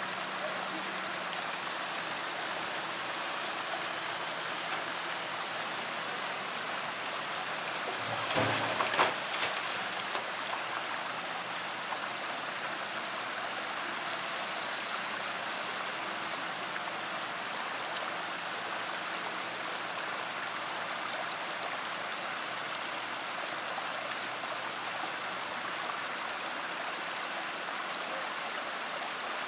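Shallow stream rushing steadily over rocks. About eight seconds in, a brief louder rumble with a couple of sharp knocks.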